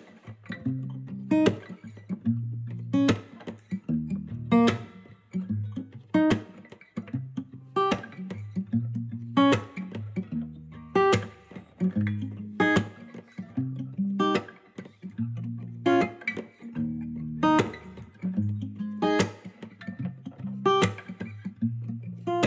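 Background music of plucked acoustic guitar, with a strong note struck at an even pace about every second and a half.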